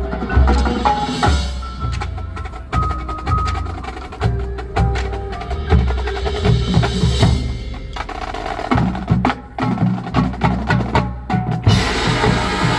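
Marching band percussion playing: pitched mallet keyboard notes and sharp woodblock-like clicks over bass drum hits. About two-thirds of the way through comes a fast, even run of drum strokes, and near the end the sound turns louder and brighter.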